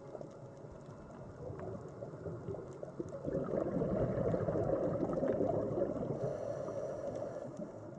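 Underwater bubbling and gurgling noise with scattered faint crackling clicks, swelling for a few seconds in the middle.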